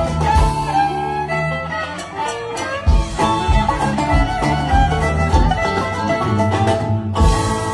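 Live country-bluegrass band playing an instrumental passage: a bowed fiddle over strummed acoustic guitars, electric guitar and banjo, with a steady beat.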